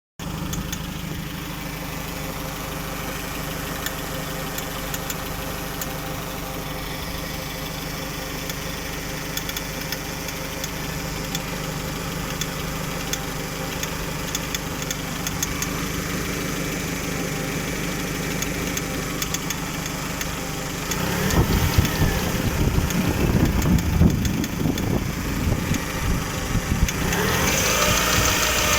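Chevrolet Lacetti 1.4-litre four-cylinder petrol engine idling, with frequent sharp knocks and ticks over the steady hum: the strange knocking that appeared after the alternator belt and its pulley were replaced. About two-thirds of the way in, the sound grows louder and rougher.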